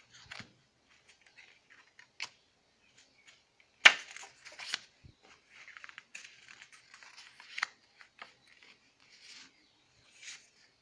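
Sheets of 4x4-inch patterned scrapbook paper handled and laid onto a pile: scattered rustling and sliding of paper, with a sharp tap about four seconds in and a smaller one near eight seconds.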